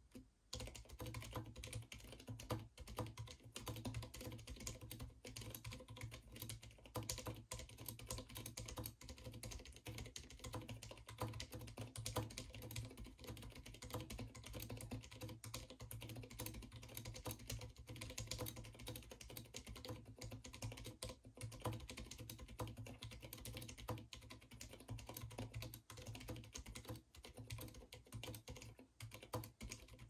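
Filco Minila-R mechanical keyboard with lubed silent red switches and PBT keycaps, typed on fast and without a break, about 95 words a minute: a quiet, dense stream of soft keystrokes.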